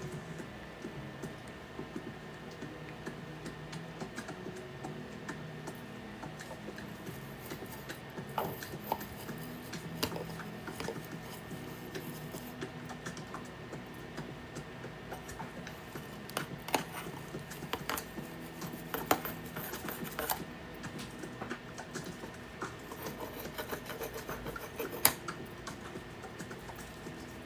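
Irregular small clicks, taps and scrapes of tools and small parts being handled on a soldering workbench, with one sharper click near the end.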